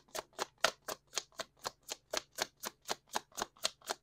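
Deck of tarot cards being shuffled by hand: an even, rhythmic run of card slaps, about four a second.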